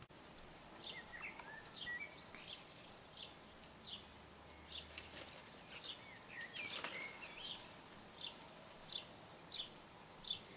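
Small birds chirping faintly in short high notes, about one or two a second, with a few sliding calls among them. There is a brief rustle about midway through.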